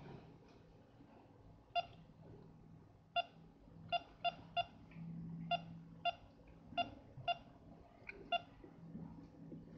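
Keypad beeps from a CHYI CH-CT39 network IP CCTV tester as its buttons are pressed: about a dozen short beeps at one pitch, some spaced out and some in quick runs of two or three.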